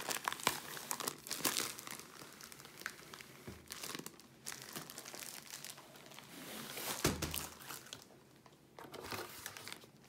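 Clear plastic wrapping and cardboard packaging crinkling and rustling in irregular bursts as a rolled diamond painting canvas in its plastic sleeve is drawn out of its box. A dull knock about seven seconds in.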